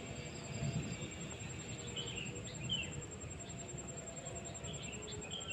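Outdoor ambience: a few short bird chirps over a thin, steady high-pitched insect buzz, with a low rumble underneath.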